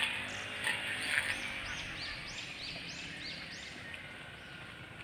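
A bird calling a quick run of about nine short, high chirping notes, roughly three a second, which stops a little before the end.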